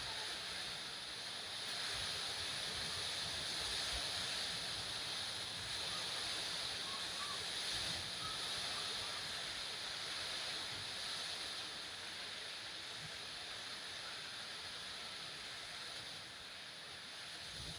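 Steady background hiss, fairly quiet and even throughout, with no distinct events.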